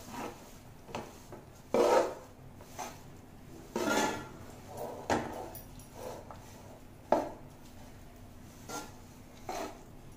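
A spoon scraping and stirring lumps of jaggery in ghee around a metal pot as the jaggery melts over a low flame. The strokes come at an uneven pace, a few of them sharper and louder than the rest.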